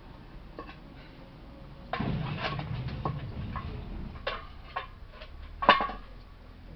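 Irregular clicks and knocks, with a stretch of rustling noise about two seconds in; the loudest knock comes near the end.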